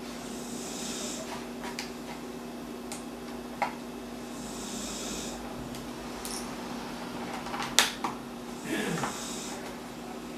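A few sharp plastic clicks as a small screwdriver pries the back cover of a cheap 7-inch tablet loose from its clips, the loudest about three-quarters of the way through. Breathing close to the microphone and a steady low hum run underneath.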